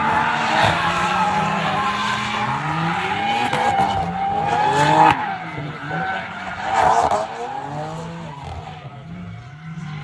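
A car drifting: tyres screeching in long squeals while the engine revs rise and fall, with the loudest squeals about five and seven seconds in.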